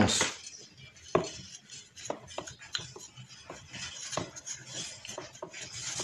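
Light irregular clicks and clinks, about a dozen scattered through, from the stand fan's motor housing, wiring and small parts being handled by hand.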